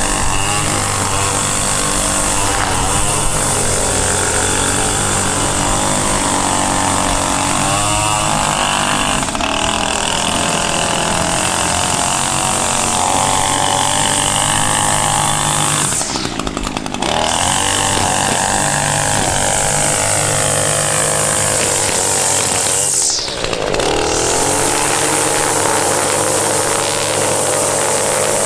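Small two-stroke string trimmer (weed eater) engine running at high speed. Its pitch drops sharply and climbs back twice, about halfway through and again later on.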